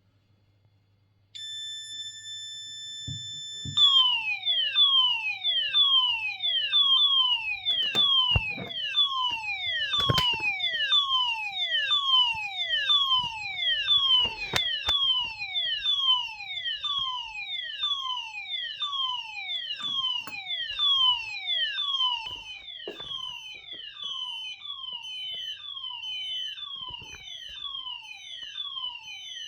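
Smoke alarm triggered by lighter smoke. About a second and a half in it starts with a steady high tone, then a couple of seconds later switches to a repeating falling-pitch siren sweep, about one and a half sweeps a second. A few sharp knocks sound over it.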